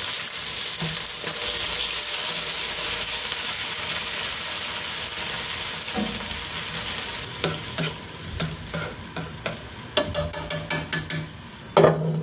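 Pig lung pieces sizzling in oil in a nonstick frying pan while being stirred. About six or seven seconds in, the sizzle dies down once water is in the pan, leaving scattered taps and clicks, and a glass lid knocks onto the pan near the end.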